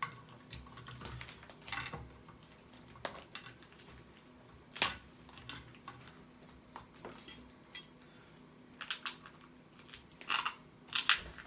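Irregular sharp clicks and cracks of a crab-and-lobster seafood boil being handled close to the microphone, with a quick cluster of clicks near the end.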